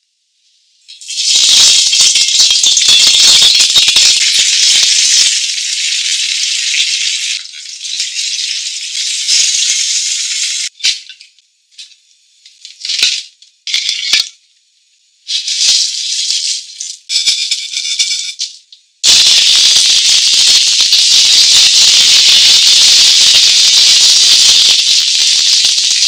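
Hot oil sizzling and crackling as a whole spiny lobster deep-fries. It comes in several stretches broken by short pauses, and the longest and loudest starts about two-thirds of the way through.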